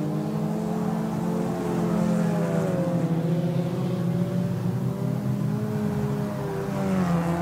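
Several front-wheel-drive four-cylinder sport compact race cars running hard on a dirt oval, their engine notes rising and falling together as they lift and get back on the throttle through the turns.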